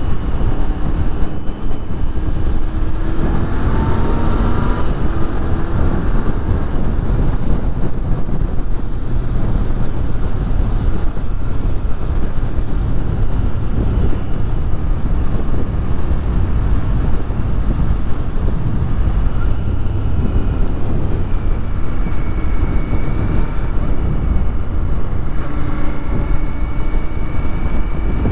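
Royal Enfield Continental GT 650's 648 cc parallel-twin engine running while riding, mixed with heavy wind rush on the microphone. The engine note rises as the bike accelerates about four seconds in, and again near the end.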